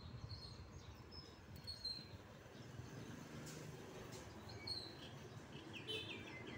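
Faint outdoor background noise with a low rumble and scattered short, high bird chirps, with a quick run of chirps near the end. A few faint clicks.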